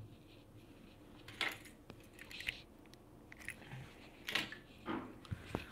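Faint, scattered clicks and rustles, like small objects being handled, in a quiet room.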